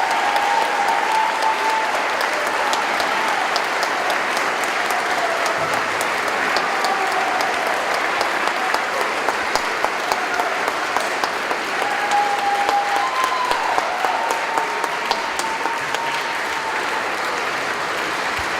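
Audience applauding steadily in a church, a dense continuous patter of many hands clapping.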